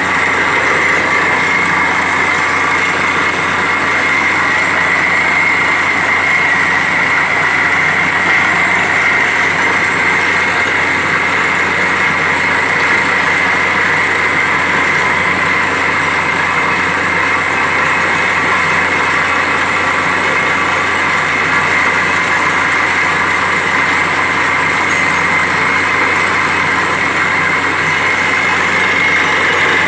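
Borewell drilling rig running with a steady, unbroken mechanical drone that stays at one level throughout.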